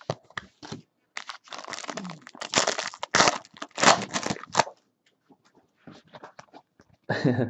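Foil trading-card pack wrapper being torn open and crinkled by hand: a few sharp crackles, then a dense crackling tear lasting about three and a half seconds, followed by a few light ticks.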